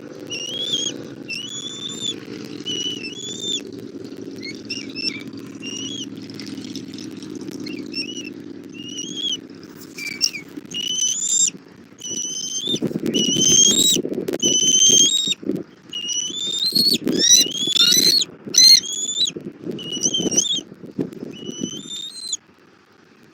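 Bald eagle calling: a long run of short, high, whistled chirps, several a second, that thin out near the end. Underneath is a low rushing noise that becomes louder and choppier about halfway through.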